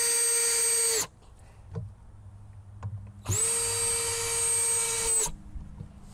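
Cordless drill driving screws into wood: the motor whines steadily and stops about a second in, then runs again for about two seconds from about three seconds in, spinning up at the start and winding down at the end.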